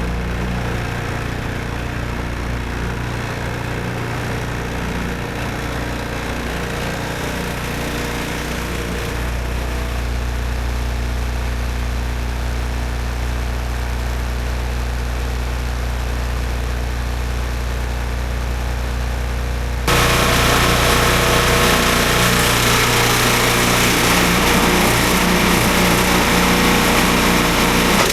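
Small single-cylinder snowblower engine running steadily. About twenty seconds in the sound jumps suddenly louder and harsher.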